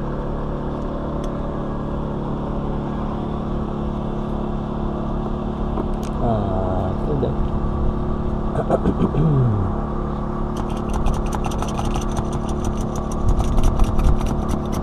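A steady mechanical hum. Two falling whines come through it in the middle, and a fast regular clicking, about four or five a second, runs through the last few seconds.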